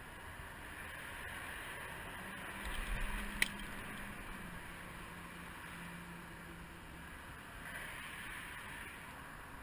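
Steady wind and water noise on an open boat, with a faint low hum that comes in about two seconds in and fades out later. A single sharp click sounds about three and a half seconds in.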